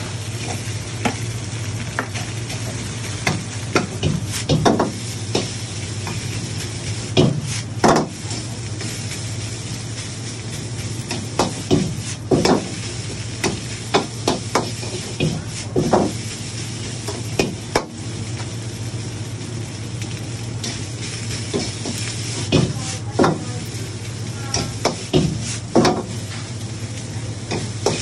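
Chicken fried rice stir-frying in a steel wok: a metal ladle scrapes and knocks against the wok at irregular intervals, often several strikes in quick succession. A steady sizzle and rushing hiss run underneath.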